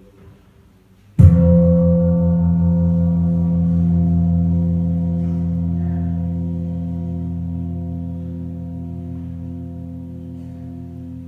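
A large metal temple percussion instrument struck once about a second in, then ringing on with several steady tones and a slow, pulsing waver, fading gradually.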